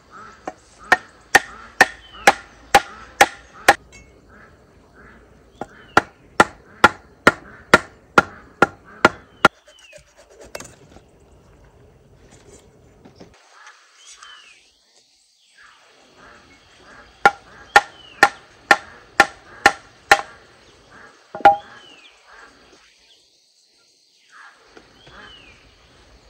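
A blade chopping on wood in three runs of steady strokes, about two a second, with a single last stroke after the third run.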